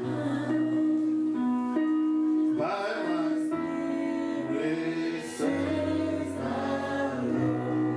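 Live gospel worship music: an electronic keyboard holding chords over a bass line, with voices singing.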